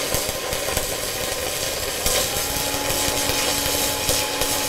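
Stick-welding arc of a 7018 electrode overloaded at about 215 amps, far past its rating, making a loud continuous crackle as the arc digs in hard.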